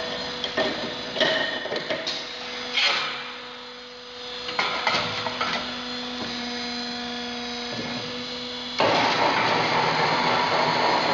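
Sheet-steel fan casing knocking and clanking as it is handled and set into a fan flanging machine, over a steady machine hum. About nine seconds in, a loud, steady metallic rolling grind starts: the flanging machine's rollers turning and forming the edge of the cylinder.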